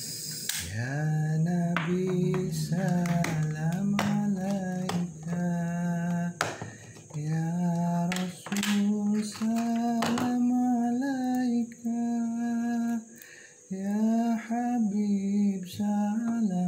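A solo voice singing shalawat, with long held notes that bend and turn, in phrases a second or two long with short breaks between them. Several sharp clicks come through the singing.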